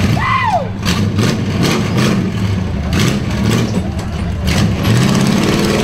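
Engine of a Chevrolet S-10-bodied rock buggy running at low revs as it crawls up a muddy rock ledge, the revs wavering slightly. A short high falling call sounds near the start.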